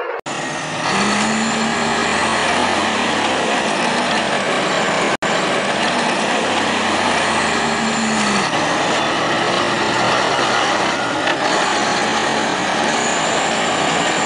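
Scania truck tractor's diesel engine revving as the truck slides around on dirt, its pitch rising and falling several times, under a dense rushing noise. The sound cuts out for an instant about five seconds in.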